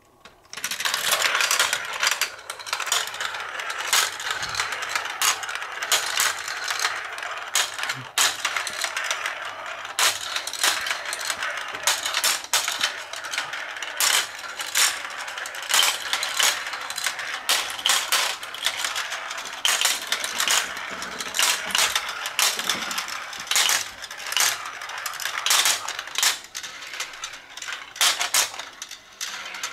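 Marbles rolling and clattering down a GraviTrax plastic marble-run tower: a dense, continuous rattle of clicks and rolling that starts about half a second in.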